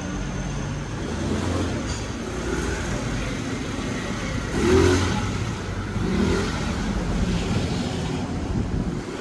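City street traffic: cars and motor scooters running past, with a louder pass about halfway through.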